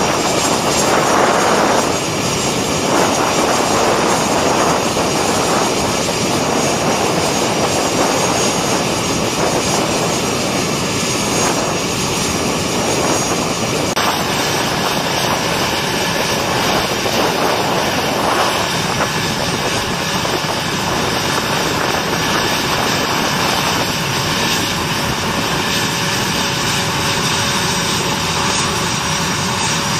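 Steady, loud aircraft-engine noise of a flight line, running without a break. The sound changes slightly about halfway through.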